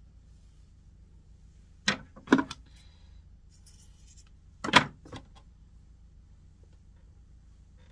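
Metal scissors picked up and set back down on a wooden tabletop: a pair of sharp clicks and clatters about two seconds in, and another clatter, the loudest, near five seconds.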